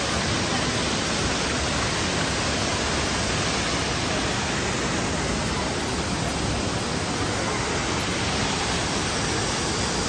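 Steady, even rush of the Düden waterfall, water pouring down into the pool below.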